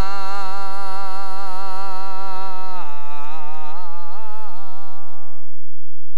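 A man's voice holding one long sung note with a slight vibrato, closing the song. About three seconds in it drops in pitch and wavers, then fades out shortly before the end.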